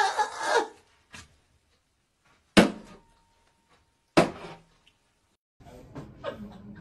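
A woman's high shriek of laughter that breaks off within the first second, then two sharp bangs about a second and a half apart, and faint room noise with small ticks near the end.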